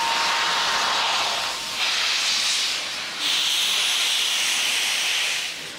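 Steam locomotive blowing steam from its cylinder drain cocks in loud hisses: a steady rush at first, then two stronger blasts, the second about two seconds long.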